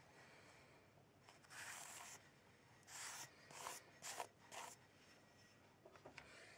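Knife blade scraping and smearing charcoal paste across paper, five short scrapes in quick succession, the first the longest.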